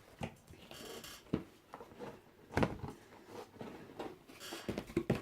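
Cardboard subscription box and its packaging being handled: a short rustle about a second in, then several knocks and taps, the loudest about halfway through.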